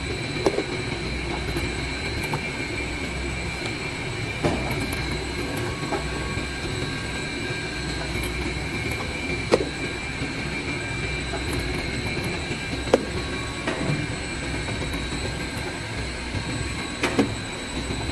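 Laundry-soap bar cutting machine running steadily, a low hum with thin high whines over it, and a few sharp clacks at irregular intervals as the cutter chops bars off the extruded soap log.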